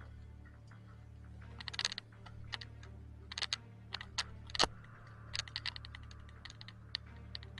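Irregular sharp clicks and clacks in scattered clusters, some in quick runs of several a second, over a steady low hum.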